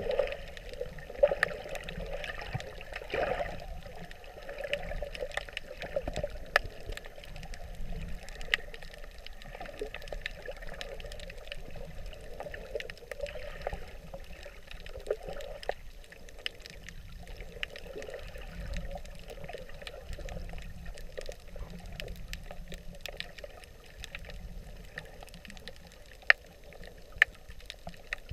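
Underwater sound picked up by a submerged camera: water sloshing and gurgling around it, with scattered sharp clicks, two louder ones near the end.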